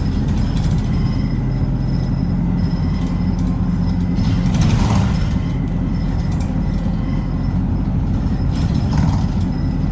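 City bus running along the road, heard inside the passenger cabin: a steady low engine drone with road noise, swelling briefly about halfway through and again near the end.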